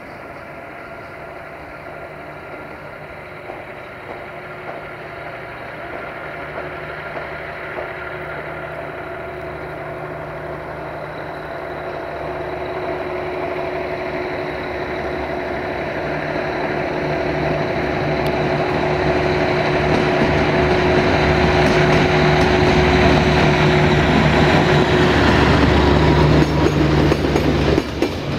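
Diesel-hydraulic locomotive approaching, its engine growing steadily louder, with a steady whine over a low hum. Near the end the carriages pass and their wheels clatter over the rail joints.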